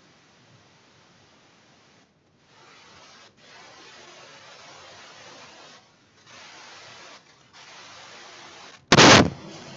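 Rubbing, hissing noise in several stretches separated by short gaps, then a sudden loud clatter near the end.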